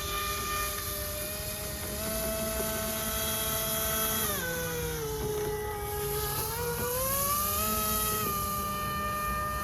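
Radio-controlled airboat's brushless electric motor driving a three-blade propeller in a prop ring: a steady whine with several overtones. The pitch steps up about two seconds in, drops as the throttle is eased back a little after four seconds, and climbs again to hold a steady high pitch from about eight seconds.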